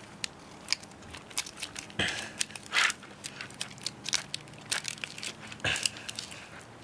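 Kitchen knife cutting lengthwise down through a crayfish's (southern rock lobster's) back shell, with irregular cracks and crunches of the shell and a few louder crunches about two seconds in, just before three seconds and near the end.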